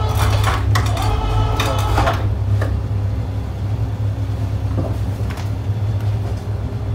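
Concrete pump's engine running with a steady low drone. Over it, metallic rattling and knocks in the first couple of seconds, and a few single clicks later.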